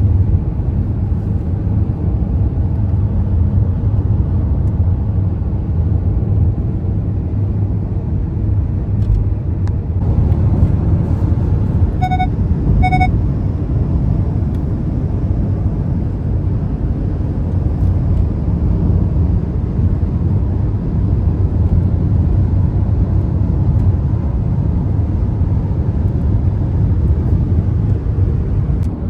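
Steady road and engine rumble heard inside a moving car. About twelve seconds in, two short high electronic beeps, just under a second apart.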